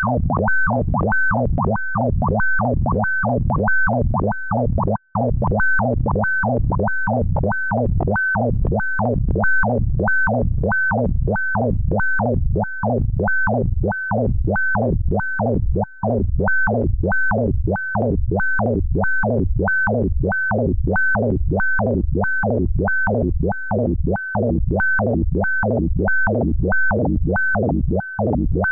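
Synthesized sonification tones generated in Pure Data from a photograph's pixel colour values: a steady low drone, with a short high blip and a pitch sweep down and back up repeating about twice a second.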